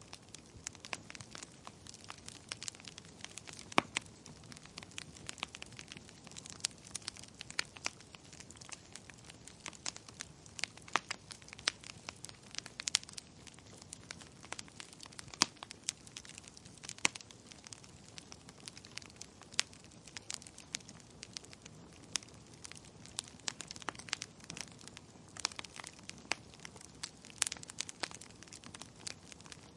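Small wood fire crackling: irregular sharp pops and snaps from burning logs over a soft steady hiss.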